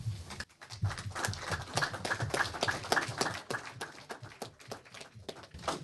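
Small audience applauding in a room, many separate hand claps, thinning out near the end.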